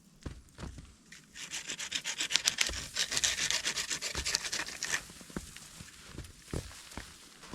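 Rapid rasping strokes, something being rubbed or scraped hard, for about four seconds, with a few soft thuds before and after.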